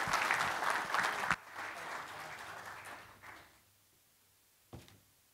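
Audience applauding, dying down sharply about a second and a half in and fading out over the next two seconds. A single soft knock near the end.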